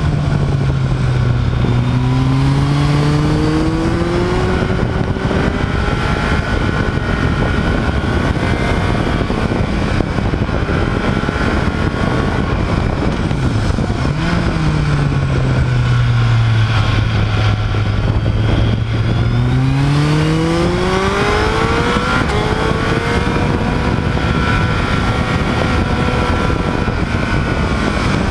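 Motorcycle engine heard from on board while riding, its note easing off and climbing again through the bends, with a long climb in revs about two-thirds of the way through. A steady rush of wind and road noise runs underneath.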